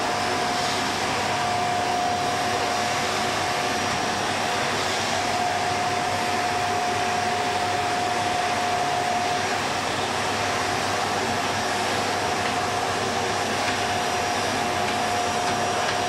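Vacuum cleaner running steadily while being pushed over the floor, an even rushing noise with a steady high hum from the motor.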